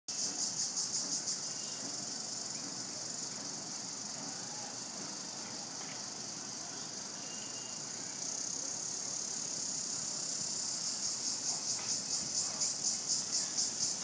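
A chorus of insects chirring on a high, shrill note. It pulses about three times a second at the start and again in the last few seconds, and holds steadier in between.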